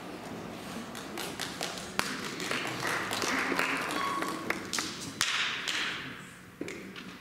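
Light, scattered applause from a small audience, beginning about a second in, filling out in the middle and dying away near the end.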